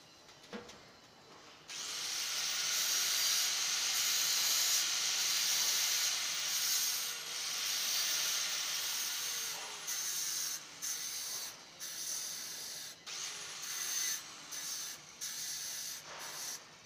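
Small angle grinder grinding metal: a steady high hiss for about eight seconds, then a run of short grinding passes with brief breaks between them.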